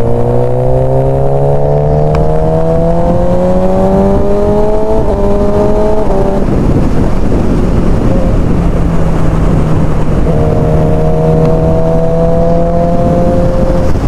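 2007 Suzuki GSX-R600 K7 inline-four engine with an aftermarket exhaust, heard from the rider's helmet on the move. The engine note rises steadily for about six seconds, drops away under wind and road rush, then comes back rising again from about ten seconds in.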